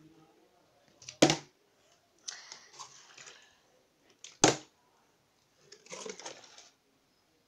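Plastic bottle tossed in a bottle flip and hitting a tile floor: two sharp knocks, about a second in and again about three seconds later, with rustling of the plastic bottle being handled in between.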